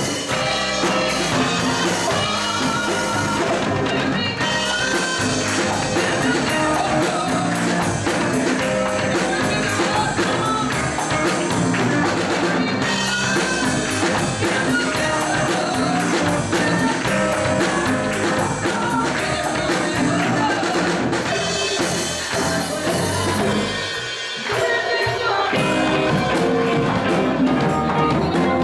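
A live band plays a song on drum kit, electric guitar and keyboard while a woman and a young girl sing. Near the end the low end briefly drops out for about a second, then the band comes back in.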